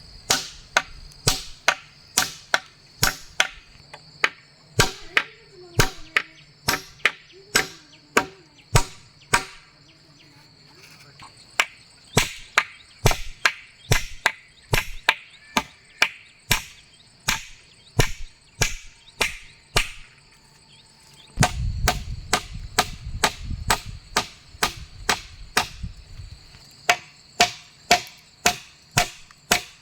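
Repeated chopping, a blade striking wood about twice a second with short pauses between runs, over a steady high drone of crickets. A low rumble joins in for a few seconds late on.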